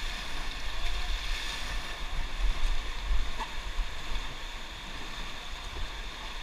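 Steady rushing of moving water, with wind rumbling unevenly on the microphone.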